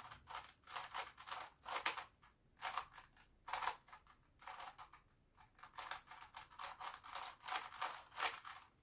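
Plastic twisty-puzzle cube, a Grilles II, being turned by hand: a run of quick plastic clicks and clacks as its faces turn, two to four a second, with short pauses about two and a half and five seconds in.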